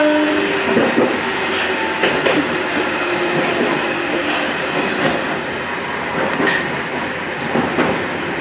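Toyama Chiho Railway 14760-series electric train running along the track, heard from the front: a steady rumble of wheels and running gear with irregular clicks as the wheels pass over rail joints.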